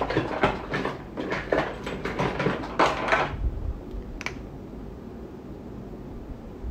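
Handling noise: a quick run of knocks, taps and rustles for about three seconds, then a single click about four seconds in, then steady low room hiss.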